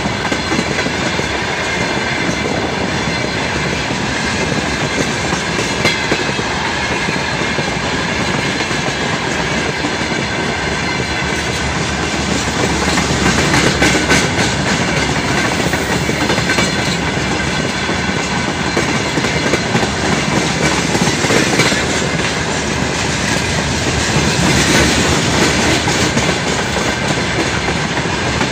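Open-top freight wagons of a long freight train rolling past close by: a steady rumble and clatter of steel wheels on the rails, a little louder about halfway through and again near the end.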